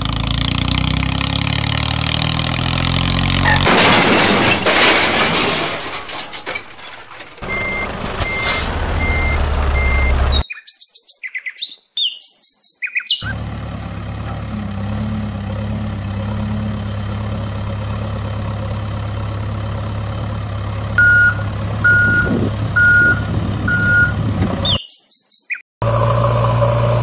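Truck engine sound effect running, with two runs of four evenly spaced reversing beeps, one about a third of the way in and one near the end. Short bursts of chirping twice break in. The sounds start and stop abruptly, in edited-in blocks.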